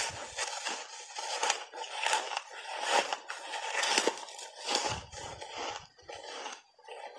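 Mouth crunching and chewing big bites of reshaped ice thickly coated in matcha powder: a dense, irregular run of crackling crunches, dipping briefly near the end.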